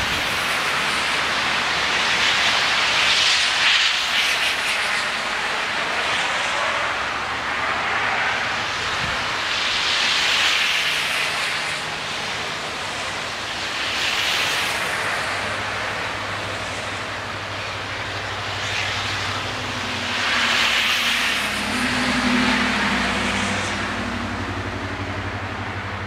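Cars driving past on a snow-covered street, tyre hiss on the snow swelling up and fading about five times over a steady rushing background. A low hum joins in during the second half.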